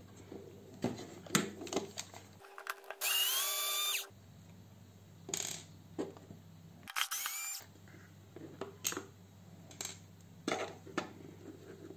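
Black+Decker cordless screwdriver running in two short bursts, its motor whine rising in pitch, as it backs the screw out of a plastic double socket: a longer run about two and a half seconds in and a brief one near the middle. Sharp plastic clicks and knocks from handling the parts come between.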